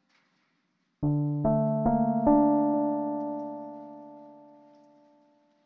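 Music: a piano-like keyboard strikes four notes about half a second apart, starting about a second in, building them into a chord that rings on and slowly fades away.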